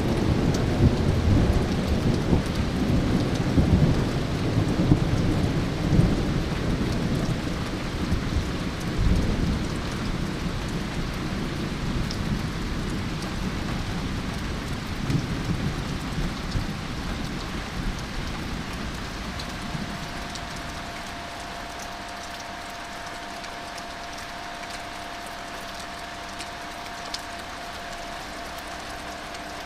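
Thunder rumbling, loudest at the start and dying away over the first two-thirds, over steady rain. A faint steady hum comes in about two-thirds of the way through.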